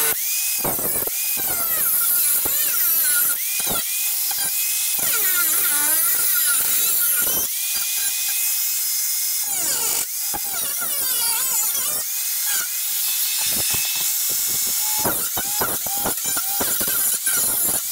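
Angle grinder with a thin cut-off wheel cutting through a snowmobile's aluminium tunnel. Its whine wavers up and down in pitch as the wheel bites into the metal.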